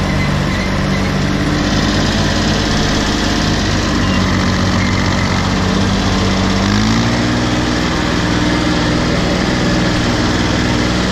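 Case 235 compact tractor's diesel engine running as the tractor drives along. About two-thirds of the way through, its pitch climbs as the engine speeds up, then holds steady at the higher speed.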